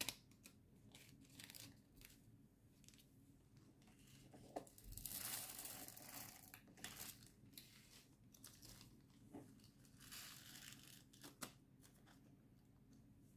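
Faint crinkling and rustling of a small plastic bag of diamond painting drills being handled and opened, with light clicks of small plastic storage containers. There are two longer rustles, about five seconds in and again near ten seconds.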